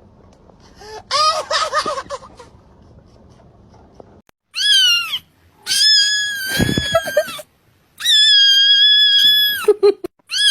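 Cat meowing: a short, lower cry about a second in, then several long, very high-pitched meows, each held and then dropping in pitch at the end.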